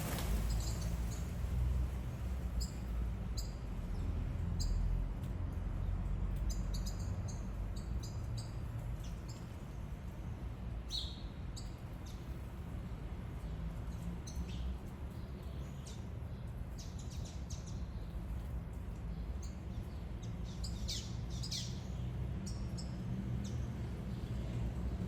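Birds chirping: many short, high chirps scattered throughout, coming thicker in the second half, over a steady low rumble.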